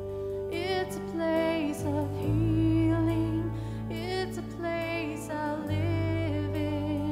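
Live worship band playing a slow, gentle song: a voice singing wavering phrases over guitar and sustained low notes that change twice.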